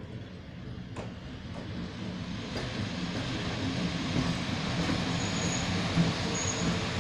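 PKP class EU07 electric locomotive passing close by with its freight train, its running noise and wheels on the rails growing louder over the first few seconds. There is a single sharp knock about six seconds in.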